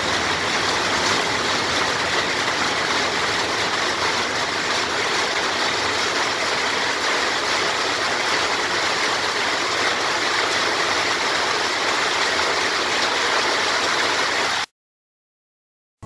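A steady, even rushing noise with no tone or rhythm in it, cutting off abruptly about a second and a half before the end.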